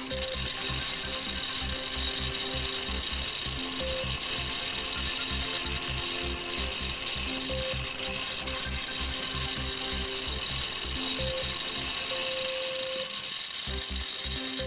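Background music with a steady beat, over a steady high-pitched mechanical whirring from a machine at work; the whirring fades out near the end while the music continues.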